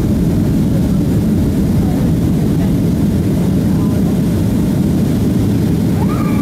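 Steady cabin noise inside a Boeing 737-300 on approach with flaps extended: the even drone of its CFM56-3 turbofan engines mixed with rushing airflow, deep and unbroken.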